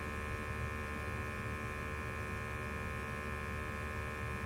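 Steady hum with a constant high whine over it, from the firing Burnham IN6 gas steam boiler and the combustion analyzer sampling its flue gas during a gas-valve adjustment.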